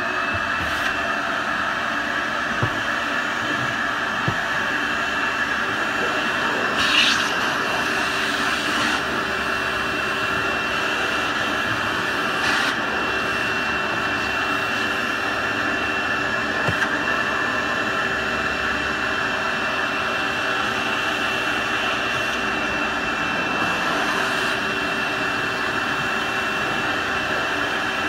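Vacuum cleaner running steadily, its hose nozzle sucking loosened grease rolls and ceiling flakes off the top of a cabinet. An even motor rush with a steady high whine, briefly louder about seven seconds in.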